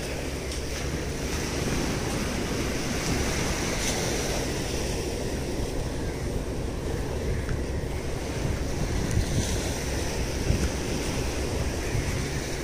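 Sea surf washing onto a sandy beach, with wind buffeting the microphone: a steady rushing noise with no distinct events.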